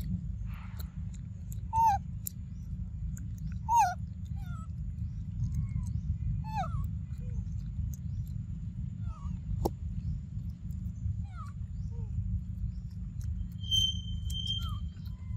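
Short high animal calls that fall in pitch, repeated every second or two, the two loudest about two and four seconds in, with a brief steady whistle near the end. A steady low rumble runs underneath.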